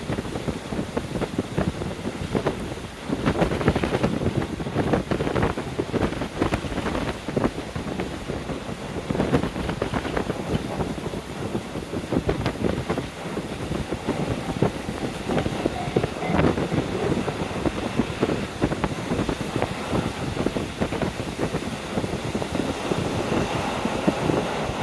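Wind rushing in through the open window of a moving KiHa 40 diesel railcar and buffeting the microphone, in uneven gusts over the railcar's running noise.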